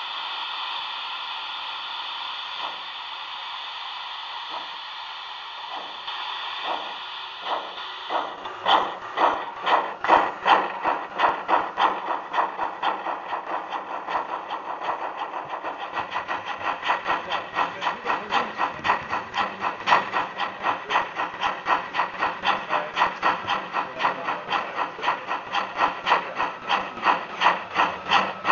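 Sound module of a model BR 80 steam tank locomotive: a steady steam hiss, then, about eight seconds in, chuffing in an even rhythm of about two to three beats a second as the locomotive gets moving.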